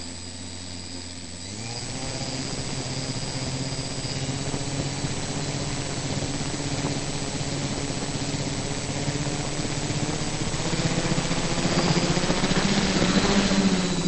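Xoar beechwood propeller spinning on a radio-controlled model aircraft, a steady pitched propeller hum. It speeds up about a second and a half in and grows louder near the end.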